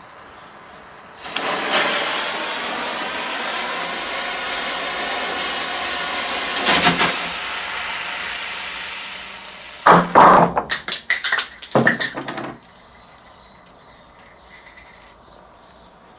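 A steady hiss as the fuse is lit and the tape match burns, starting suddenly about a second in, with a sharp pop near seven seconds; then a rapid series of pops between about ten and twelve and a half seconds as the Diamond Mars Venus table fireworks go off one after another.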